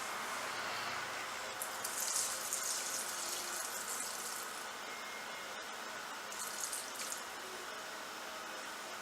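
Mineral spirits being poured into a jug of silicone, a steady liquid pour with louder splashy spells about two seconds in and again around six seconds.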